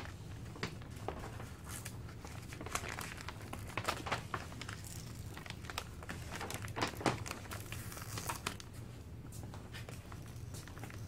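Stencil backing sheet being peeled up and crumpled by hand: irregular crinkles and crackles, over a faint steady low hum.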